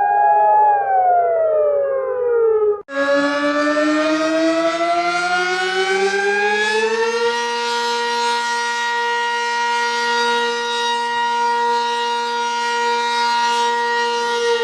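Warning siren recording played in reverse. One siren tone slides downward and cuts off sharply about three seconds in, then a second siren slowly rises in pitch and holds a steady, rich tone.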